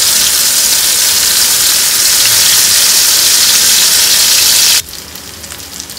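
Soya chaap pieces frying in hot oil in a kadai: a loud, steady sizzling hiss. A little under five seconds in it drops suddenly to a quieter crackling sizzle with small pops.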